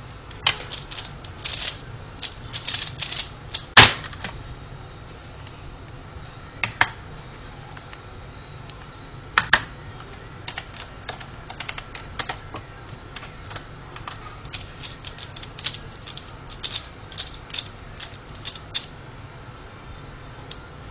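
Plastic Pyraminx puzzle being turned rapidly by hand: quick runs of sharp plastic clicks in two spells, early on and again in the second half. There is a single louder knock about four seconds in.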